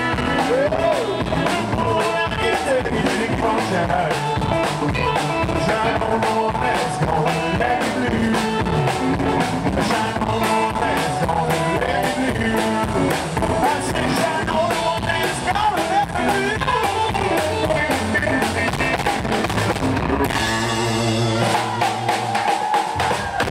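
A live rockabilly trio playing an instrumental passage on electric guitar, drum kit and upright bass, with busy drumming. About twenty seconds in, the band stops on a held final chord that rings out and fades: the end of the song.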